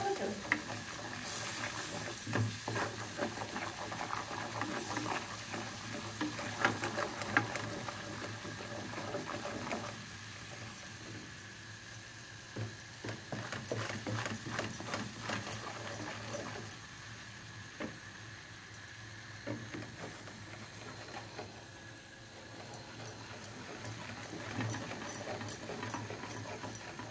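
Butter and cornmeal bubbling and crackling in a metal pan on a gas stove while a wooden spoon stirs and scrapes through it, with scattered small pops and clicks. The stirring is busier for the first ten seconds or so, then quieter.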